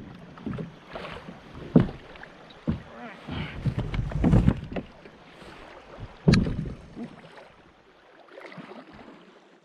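Water rushing around a kayak on a swift river, with wind buffeting the microphone and a few sharp knocks and bumps, the loudest about six seconds in. It fades quieter near the end.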